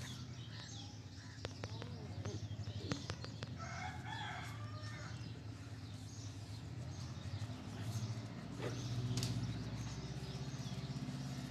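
Fingernails pinching and crushing nits pulled from hair: a few small sharp clicks, over a steady low hum, with a faint call in the background around four seconds in.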